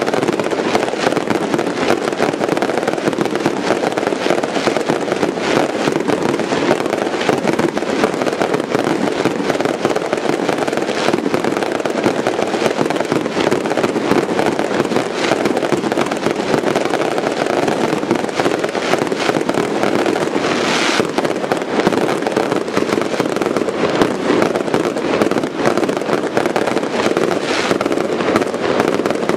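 Aerial fireworks display with shells bursting in a dense, continuous barrage of bangs and crackling. A few brief hissing bursts stand out over the steady volley.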